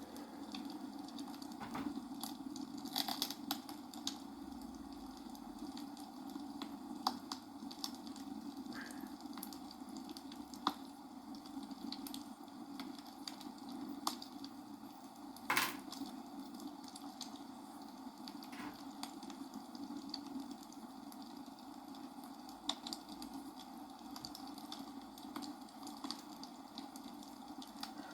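Scattered light clicks of small plastic building bricks being handled and pressed together, irregular and a few seconds apart, the sharpest about halfway through, over a steady low background hum.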